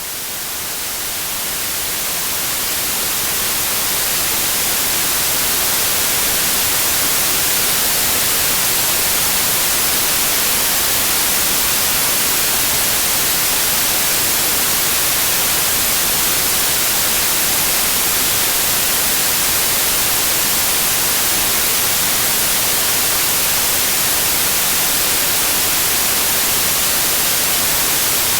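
Synthetic white noise: a steady, even hiss with its energy weighted toward the treble. It fades in over the first several seconds, then holds at a constant level.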